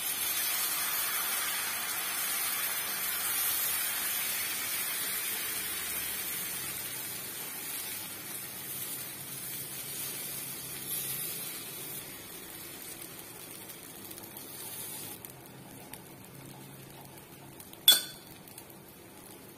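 Bhagar (barnyard millet) dosa batter sizzling on a hot oiled non-stick tawa as it is poured and spread with a steel ladle. The hiss is loudest at first and fades steadily. A single sharp clink near the end.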